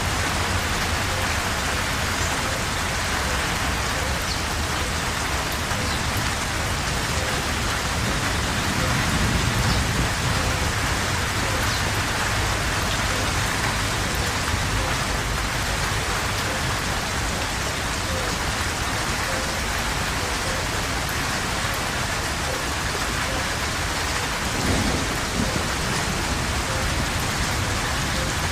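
Steady heavy rain pattering on foliage and ground, with low rumbles of thunder underneath, swelling a little about a third of the way through.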